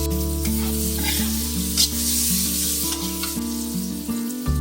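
Shiitake mushrooms and ginger sizzling in oil in a pan over slightly lowered heat, a spatula stirring and scraping them a few times. Soft background music with held notes plays underneath.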